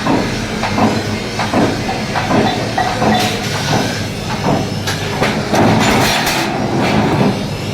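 Blacksmith's workshop: irregular hammer blows and clanks on metal over a steady rushing noise.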